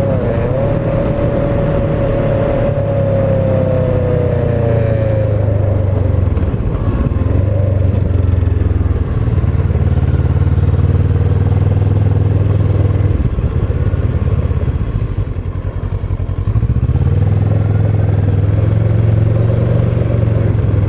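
Kawasaki ER-6n's parallel-twin engine running at road speed under wind rush, with a whine falling slightly in pitch over the first few seconds. The engine eases off about two-thirds of the way through, then pulls strongly again near the end.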